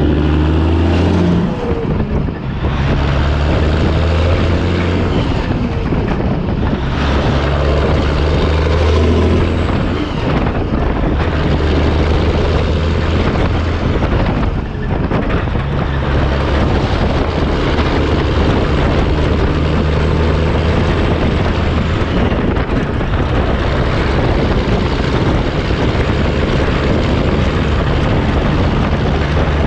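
Semi truck's diesel engine running under way at road speed, heard from behind the cab near the exhaust stacks, over heavy road and wind noise. The low engine note holds steady, then steps to a new pitch a few times, with two short drops in level about two and a half and fifteen seconds in.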